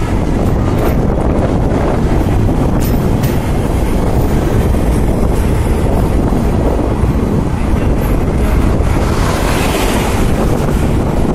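Passenger train running at speed, heard from an open carriage window: a steady rumble of wheels on the rails with wind buffeting the microphone, and a brief rise in hiss about nine seconds in.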